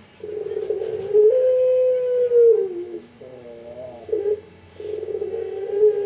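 Puter pelung, a long-cooing barbary dove, cooing twice: each time a rolling, pulsed note runs into a long drawn-out coo that drops in pitch at its end, with shorter wavering notes between the two.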